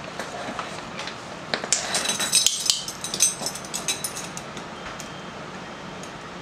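Set of metal measuring spoons clinking and jangling on their ring, with a burst of light clinks about two seconds in.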